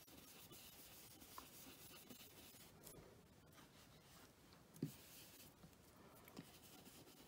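Faint rubbing of a round ink-blending brush worked over cardstock and masking paper, with one short knock about two-thirds of the way through.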